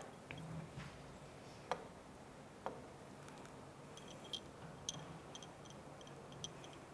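Faint, irregular taps and ticks of a pen against a classroom board, with a few quick light clicks in the second half.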